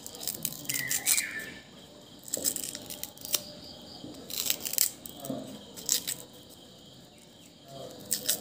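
Paper wrapping of a small cube-shaped firecracker being torn and peeled open by hand, in a series of short crackling rips.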